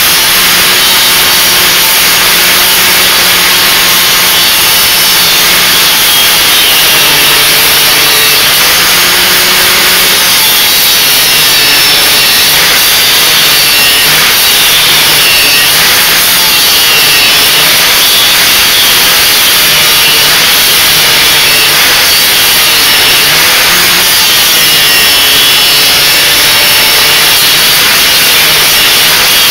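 Bench-mounted 900-watt angle grinder running while steel is ground against its wheel: a loud, continuous grinding hiss over the motor's hum. The hum drops a little and wavers as the metal is pressed on.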